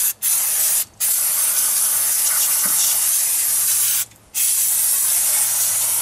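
Aerosol can of brake and parts cleaner spraying in long hisses onto a brake disc and caliper. The spray stops three times for a fraction of a second: at the start, about a second in, and about four seconds in.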